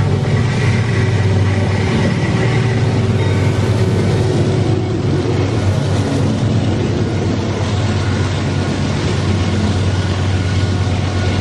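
A pair of Wabtec ES44ACi diesel-electric locomotives running hard and passing close by, their engines droning steadily as they haul an empty freight train up a steep grade. After they pass, the empty ore wagons rumble along the rails behind them.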